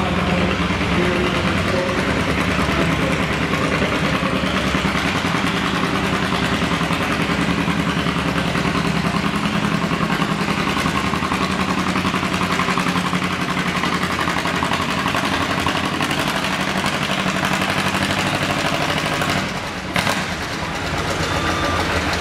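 John Deere G's two-cylinder engine running hard under load as it pulls a weight-transfer sled. About twenty seconds in, the engine sound drops away and a single sharp knock is heard.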